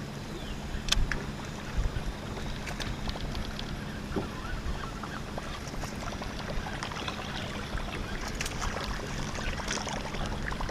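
Lake water lapping and slapping against a fishing boat's hull under a steady low hum, with scattered light clicks and ticks from the anglers' baitcasting reels and gear as bucktails are reeled in.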